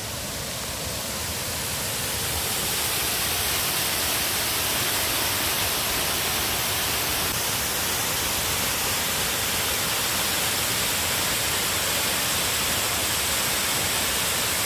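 Waterfall rushing as a steady, even roar of falling water. It grows louder over the first few seconds, then holds level.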